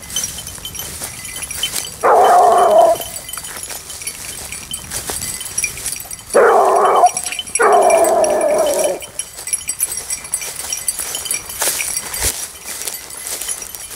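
Basset bleu de Gascogne hounds baying while working a hare's scent. There are three long, drawn-out bays of about a second each: one about two seconds in, and two close together near the middle.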